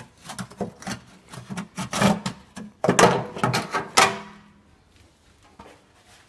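Thin sheet-metal heat shield being pulled free from a car's underbody, scraping and clattering against the floor pan and exhaust, with a few loud rattles about two, three and four seconds in. The noise stops about halfway through once the shield is out.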